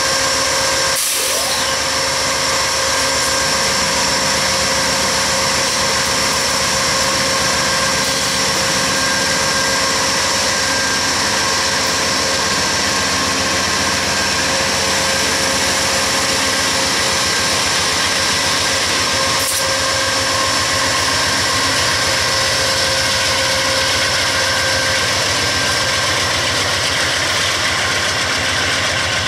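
Diesel locomotive engine running steadily at an even speed, with two brief clicks, one about a second in and one about two-thirds of the way through.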